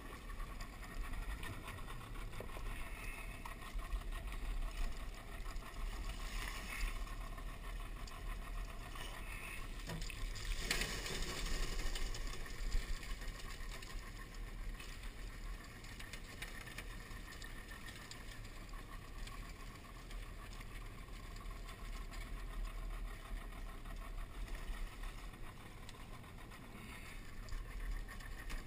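Outboard motor on an aluminium crawfish skiff running slowly with a steady low drone as the boat works along a trap line. A short clatter stands out about eleven seconds in.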